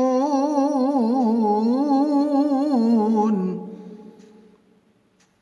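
Man reciting the Qur'an in a melodic chant, holding the last syllable of "tūqinūn" in a long wavering melisma that breaks off about three seconds in. The voice then dies away in the mosque's echo, leaving only a few faint clicks.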